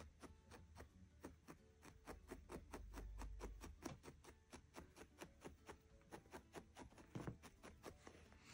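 A barbed felting needle stabbing quickly and repeatedly through wool into a felting pad: faint, even ticks at about five a second.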